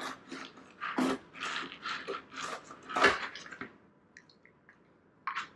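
Bubba Blade fillet knife slicing a white bass along its backbone on a plastic cooler lid: a run of scraping, cutting strokes with a couple of sharp clicks, stopping after about three and a half seconds, then a few faint ticks.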